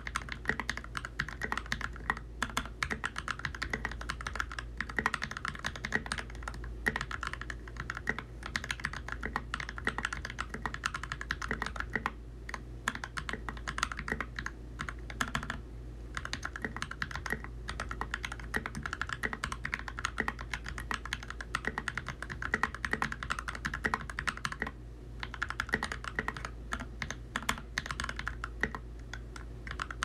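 Fast touch-typing on an NK65 Entry Edition mechanical keyboard with Creampaca linear switches and Akko Neon double-shot keycaps: a quick, steady stream of key strikes with a few brief pauses.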